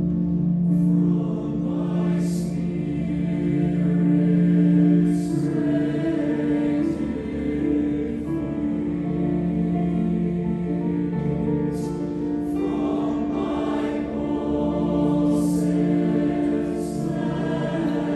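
Mixed choir singing slow, held chords in harmony, with crisp 's' consonants sung together at several points.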